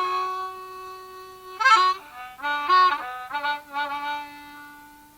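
Harmonica playing long held notes and a short run of changing notes, sometimes two notes at once, with the last note fading out near the end.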